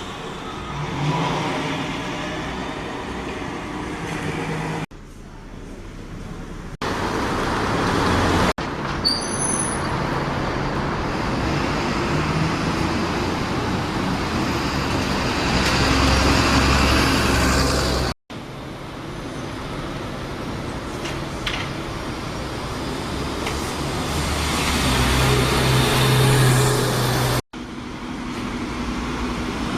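Buses and road traffic running past in a series of short clips that cut abruptly from one to the next, with engine noise growing louder as vehicles approach, twice.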